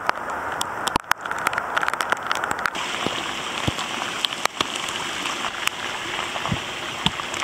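Steady rain falling, with scattered sharp raindrop taps close by. From about three seconds in, a stronger rush of splashing water joins it as a bicycle is pushed through shallow running floodwater.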